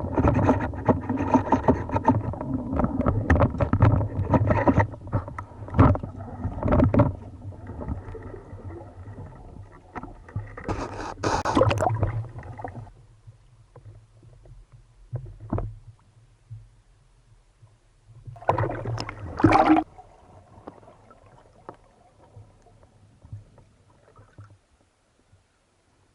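Water splashing and sloshing with irregular knocks and scrapes, busiest through the first half, with two louder rushes of water partway through and about three quarters of the way in, then dying away.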